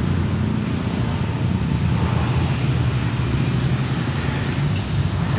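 Steady rumble of road traffic, cars and motorbikes passing, with no single vehicle standing out.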